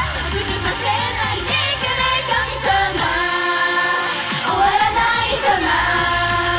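Japanese idol pop song performed live: female voices singing a held, wavering melody over the music. The bass drops out for about a second and a half midway, then comes back.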